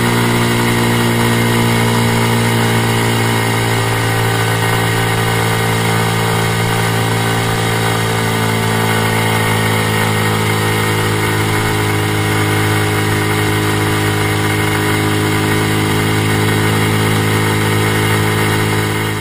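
Honda Super Cub 50's single-cylinder four-stroke engine running steadily while riding, with an abnormal 'shaa' hissing noise from near the crankcase heard apart from the engine note.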